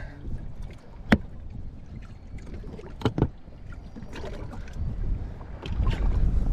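Three sharp clicks or knocks, one about a second in and two close together about three seconds in, over a low rumble of wind on the microphone that grows louder near the end.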